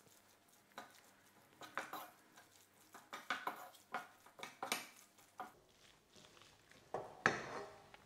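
Wooden spatula stirring thick risotto in a nonstick frying pan, with irregular scrapes and knocks against the pan. About seven seconds in comes a louder, ringing clank as the pan is lifted off the gas hob's grate.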